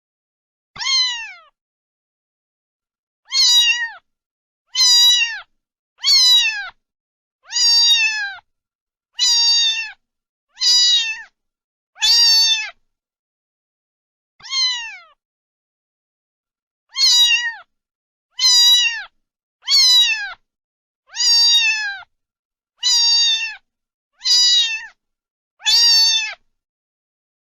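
Domestic cat meowing over and over: about sixteen short, high meows, each falling in pitch. Dead silence lies between the meows, with two longer pauses near the middle.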